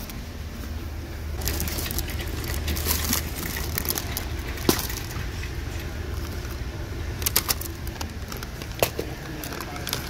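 Plastic sleeve around a potted basil plant crinkling as it is handled, with a few sharp clicks and knocks, over a steady low hum of store ambience.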